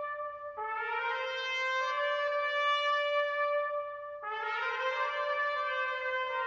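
Brass instruments playing long held notes together in harmony, moving to a new chord about half a second in and again about four seconds in.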